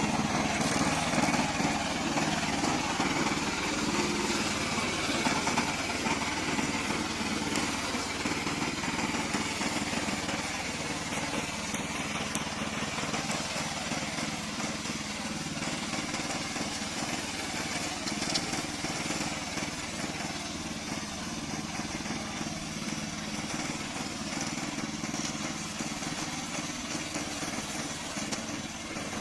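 Remote-controlled lawn mower's engine running steadily while mowing, a continuous drone that slowly grows a little quieter.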